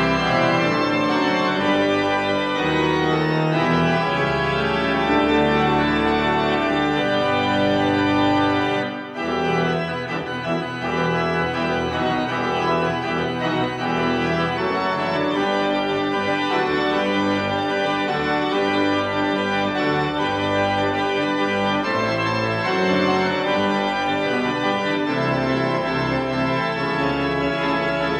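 Organ music playing held chords that change every second or two, with a brief break about nine seconds in.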